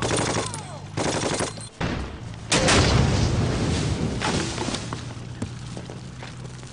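Battle sound effects: a few short bursts of gunfire, then a loud blast about two and a half seconds in, which is the loudest sound, followed by more firing that dies away.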